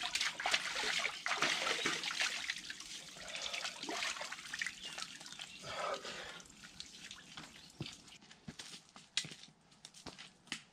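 Water running from a spout into a wooden log trough and splashing as a person washes his head and face under it. About eight seconds in it gives way to a much quieter stretch with scattered light ticks.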